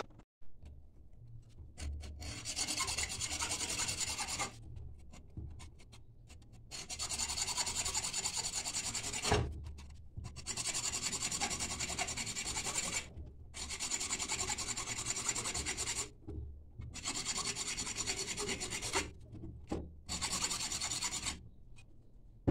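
Hand hacksaw cutting through a coconut's fibrous shell. It saws in fast rasping strokes in about six spells of one to three seconds, with short pauses between them and one sharp knock about nine seconds in.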